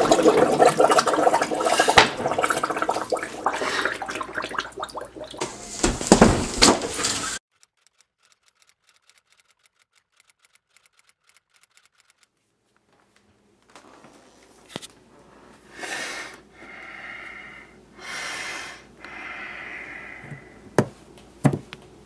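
Dishes and cutlery clattering loudly and continuously, cutting off abruptly into near silence. After a few seconds come quieter sounds: a few sharp clicks and several soft, breathy swells.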